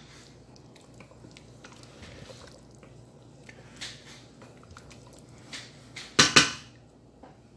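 A spoon stirring chicken in sauce in a stainless steel pot: soft scrapes and small clinks against the pot. About six seconds in comes a loud double clatter of the utensil hitting the pot.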